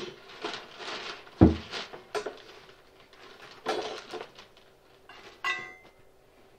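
Handling noises while a scarecrow decoration is assembled: rustling paper and light knocks and clicks of parts being moved, with one heavy low thump about a second and a half in and a short ringing clink near the end.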